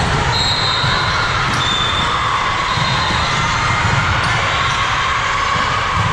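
Loud, steady gym din during a volleyball match: crowd voices with balls being hit and bouncing on the court, and two short high squeaks in the first couple of seconds.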